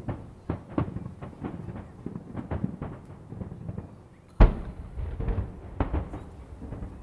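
Aerial fireworks shells bursting in quick succession, a dense run of booms with one much louder boom about four and a half seconds in.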